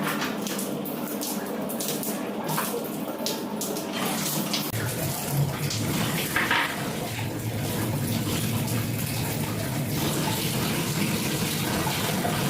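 Cold water running steadily out of an electric water heater's drain valve through an attached pipe as the tank is emptied.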